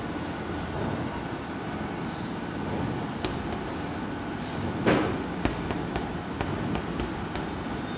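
Chalk tapping and scratching on a chalkboard as digits are written: a string of sharp ticks from about three seconds in, with one louder scrape near the middle, over a steady low background rumble.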